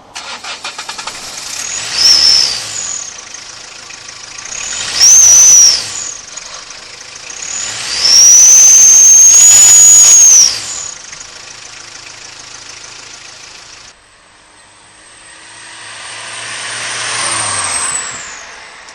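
Citroen Berlingo engine revved three times with a fake turbo whistler in the exhaust pipe, each rev bringing a high whistle that rises and falls with it; the third rev is held for about two seconds. Near the end a slower swell carries a long whistle that falls away as the engine drops.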